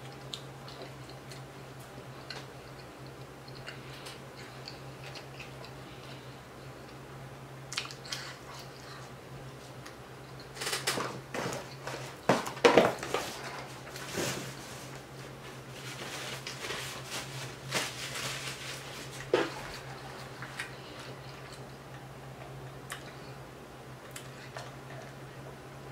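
Close-up chewing and biting of a quadruple-patty burger, with scattered small clicks and a louder stretch of chewing noises about halfway through, over a steady low hum.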